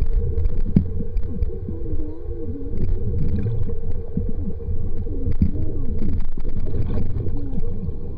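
Muffled underwater rumble and gurgling from a camera submerged on a water ski, with low warbling tones that bend up and down throughout.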